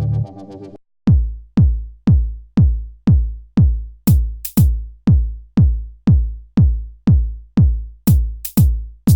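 Electronic music: held synthesizer chords cut off just under a second in, then a steady drum-machine kick beat at about two beats a second, with a few short high hits near the middle and toward the end.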